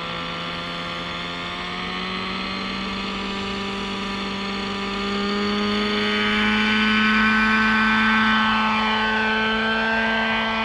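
Radio-controlled model helicopter's engine and rotors running in a hover, a steady whine that climbs slowly in pitch and grows louder about halfway through, then holds. The engine is warmed up and pulling well after a complete rebuild.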